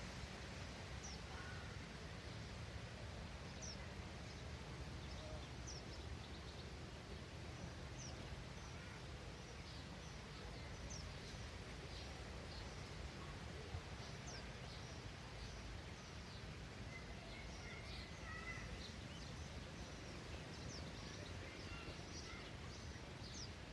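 Small wild birds chirping: many short, high chirps scattered throughout, with a brief run of lower twittering a little past the middle, over a faint, steady low outdoor rumble.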